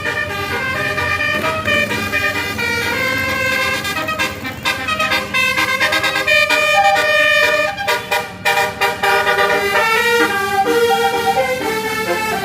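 Tour bus's Basuri telolet horn playing a melody of held, stepped notes, with a quick run of short chopped notes in the middle.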